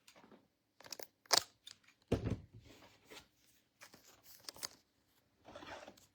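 Trading-card packs and cards being handled: foil pack wrappers crinkle and tear and cards click together, with a soft knock about two seconds in.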